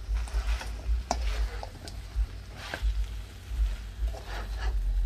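Vegetables being stirred and turned in a stainless steel pot with a utensil: irregular scrapes and clicks against the metal, over a strong, uneven low rumble.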